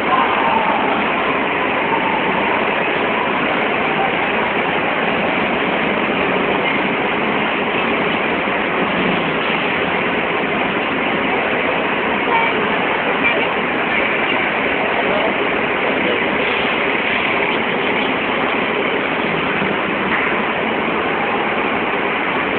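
Steady crowd hubbub in a busy terminal hall: many indistinct voices blending into a dense, even noise.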